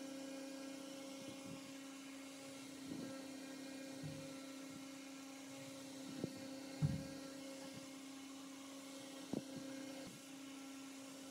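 Steady low electrical hum, with a few faint knocks and clicks from handling the vacuum cleaner's motor and plastic parts; the loudest is a dull thump about seven seconds in.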